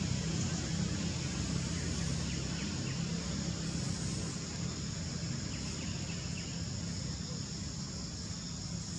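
Steady outdoor background noise with a low hum underneath and a few faint high chirps.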